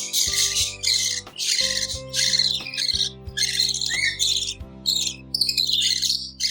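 Budgies chirping in quick, dense bursts, about two a second, over background music with held notes.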